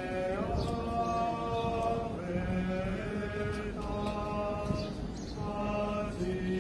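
Unaccompanied Latin plainchant (Gregorian chant) being sung: long held notes moving slowly from pitch to pitch, with short breaths between phrases.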